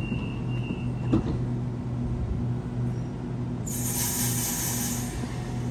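Double-deck electric passenger train moving slowly along a sharply curved platform, with a steady low electrical hum and a single knock about a second in. About three and a half seconds in, a loud, high hissing screech from the wheels on the curve starts and lasts about a second and a half.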